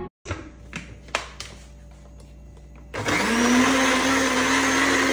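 A few light knocks, then about three seconds in a countertop electric blender switches on. Its motor spins up quickly and settles into a loud, steady whine as it blends fruit.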